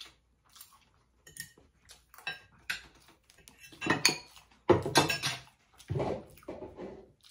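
Metal spoons and forks clinking and scraping against ceramic plates and bowls as food is served, a run of irregular clinks and scrapes that grows loudest about four to six seconds in.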